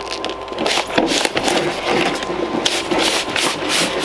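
A heavy boxed item being handled and unpacked: repeated rubbing, scraping and knocking.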